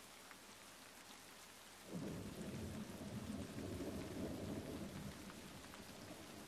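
Steady rain with scattered drops ticking; about two seconds in, a low rumble of thunder comes in suddenly, rolls for a few seconds and slowly fades.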